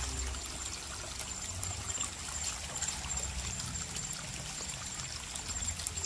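Water trickling steadily in a small stream, with a thin, steady high-pitched tone above it.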